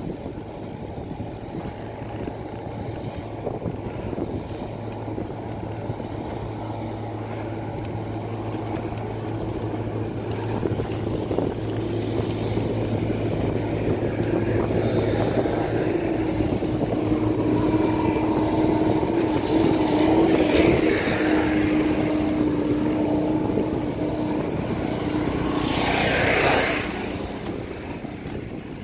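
Recumbent trike rolling along a paved trail: steady tyre and wind noise with a low hum. A steady tone comes in midway and holds. A louder rushing swell builds near the end and cuts off sharply.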